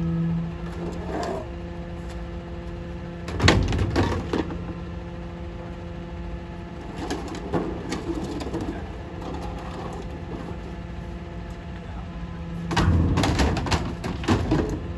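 Rear-loader garbage truck's engine idling with a steady hum while plastic children's toys are thrown into its rear hopper. There are clattering knocks about three and a half seconds in, more around seven to eight seconds, and a longer, louder burst of clatter near the end.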